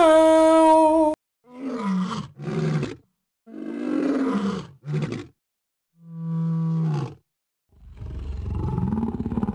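A cat making strange, roar-like calls: a series of short growling calls, each falling in pitch, then a longer, rougher growl starting near the end.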